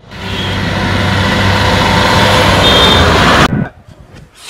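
Truck engine running steadily on the highway with a low, even hum. It cuts off abruptly about three and a half seconds in.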